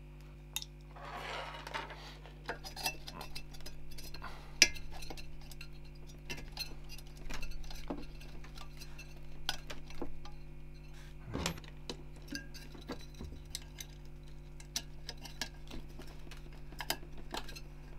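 A 120 mm fan and its clips being fitted to a CPU tower heatsink: many small plastic and metal clicks and taps, with a brief scrape about a second in and a duller knock past the middle.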